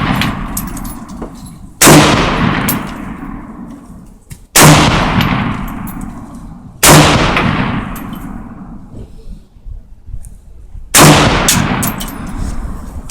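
Saiga AK-pattern semi-automatic rifle fired in slow single shots: four sharp reports a few seconds apart, with a fifth at the very end. Each report rings out with a long echoing decay.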